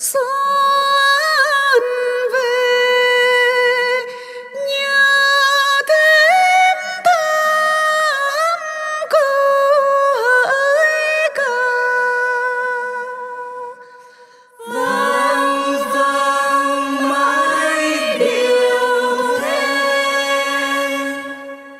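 Women singing hát then, the Tày-Nùng ritual song: a single voice sings long, ornamented phrases with sliding pitch, breaking briefly about four seconds in. About fifteen seconds in, after a short pause, several voices join and sing together.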